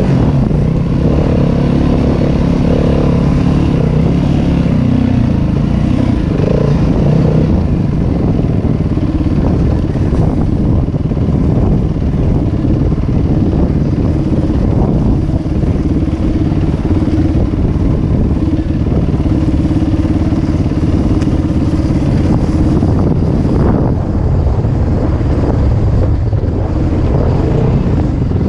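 Yamaha WR250F dirt bike's four-stroke single-cylinder engine running under way, heard close up from the rider's seat. Its pitch shifts with the throttle for the first several seconds, then it runs steadier.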